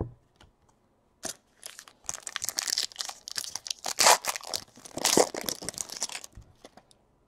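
Foil wrapper of a Panini Elite Extra Edition baseball card pack being torn open and crinkled by hand: a dense run of tearing and crackling lasting about four seconds, after a single light tap about a second in.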